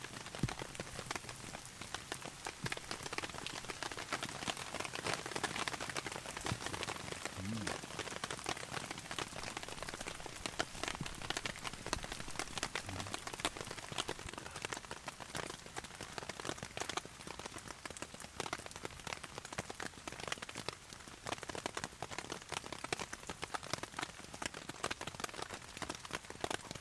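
Heavy rain pelting a camping tarp overhead: a dense, steady patter of countless drop impacts.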